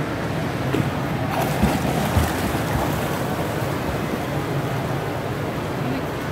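Flutter-kick splashing: a swimmer's feet churning the water in a steady rush of splashing, with two brief low thumps about two seconds in.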